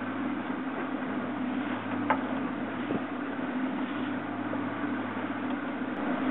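Boat engine running steadily, a low even hum under a hiss of wind and water, with a brief click about two seconds in.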